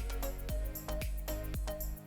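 Background music with a steady beat, about four beats a second, over a held bass.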